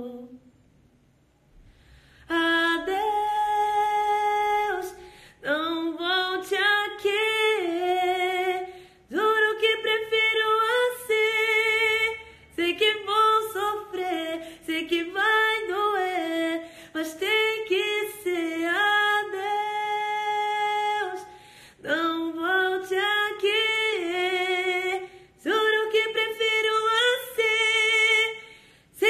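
A woman singing unaccompanied, in phrases of held notes that bend at their ends, with short breaks for breath between phrases. The voice comes in about two seconds in.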